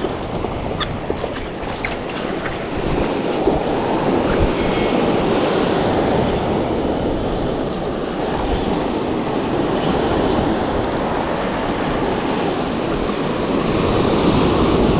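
Surf washing up and back on a sandy beach: a steady rushing noise that swells about three seconds in and again near the end.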